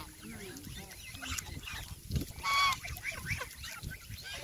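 A flock of domestic geese calling: many short honks and chatter, with one loud honk about two and a half seconds in.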